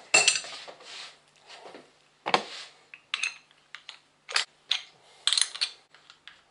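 Steel bike tools and a freshly extracted crank arm being handled, giving a string of sharp metal clanks and clicks, some ringing briefly. The loudest clank comes right at the start.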